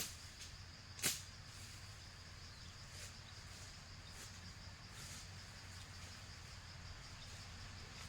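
Steady high insect trill, with two sharp knocks near the start about a second apart and fainter knocks every second or so after.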